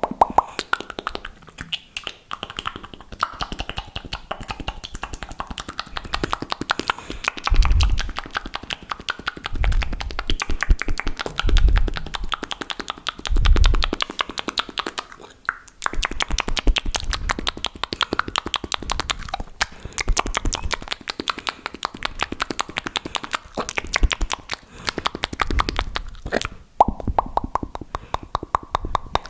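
Fast, wet mouth sounds right at the microphone: a dense run of rapid tongue clicks, pops and smacks, broken by a few deeper thuds.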